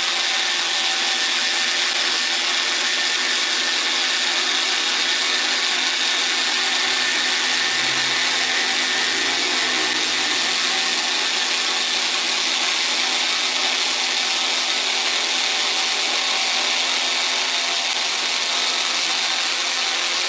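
Electric power tool running steadily at constant speed: a continuous high whine over a loud hiss.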